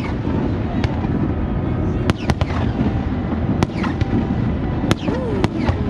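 Aerial fireworks display bursting overhead: about half a dozen sharp bangs, spaced a second or so apart, over a continuous low rumble of distant booms and echoes.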